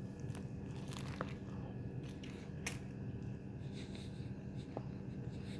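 A person biting into and chewing a crispy fried chicken sandwich: faint crunches and a few sharp clicks over a steady low hum.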